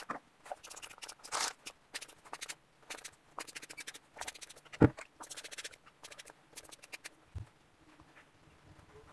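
Fingers rubbing and working through twisted hair close to the microphone: scratchy, crackling rustles coming in short spells. A single loud thump about five seconds in, and a softer one a couple of seconds later.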